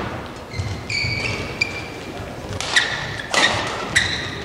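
Court shoes squeaking on the badminton court mat as players move into position, several short high squeaks with a few footfalls.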